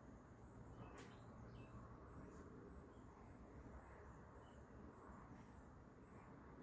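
Near silence: faint outdoor ambience with a high chirp repeating evenly about twice a second over low background hiss.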